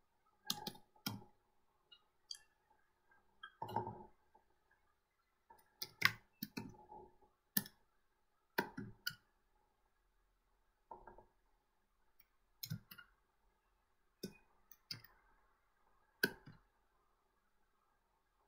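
Scattered faint clicks of computer keyboard keys and mouse buttons, irregularly spaced with quiet gaps, as a line of code is typed.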